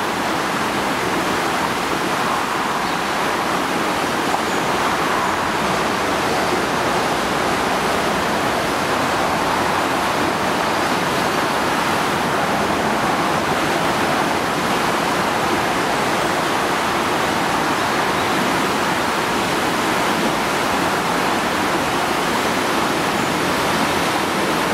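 Steady rushing of a river in spate, swollen by heavy rain, its brown floodwater tumbling over rocks and a weir.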